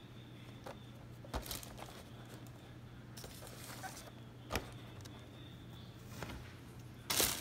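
Light handling noises: a few short knocks as a cardboard Funko Pop box is moved and set down on a shelf, then a brief rustle of a plastic shopping bag near the end, over a faint steady hum.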